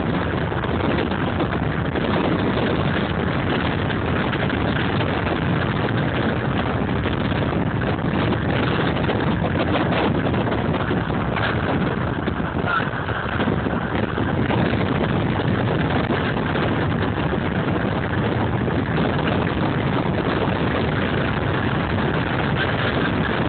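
Steady wind and road noise from riding in the back of an open-top BMW 320i convertible on the move, with the car's engine running underneath.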